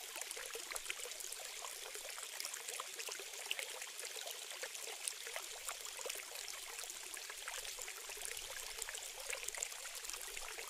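Faint, steady trickle of water running from a thin plastic tube into a small sand pit, with light splashing as the pit fills.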